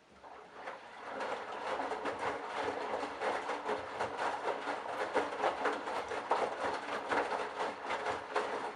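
Candy BIANCA washing machine's drum turning during the wash phase, tumbling wet laundry in a dense, steady sloshing and clattering over a faint motor hum, building up over the first second.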